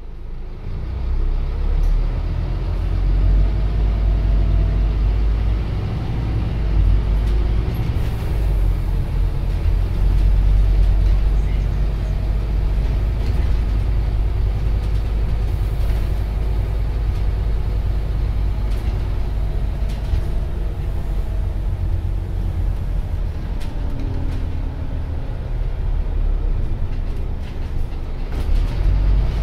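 Inside a Scania OmniCity CN230UB bus under way: a steady low diesel engine drone and road noise, with the engine note rising and falling a few times as the bus pulls along.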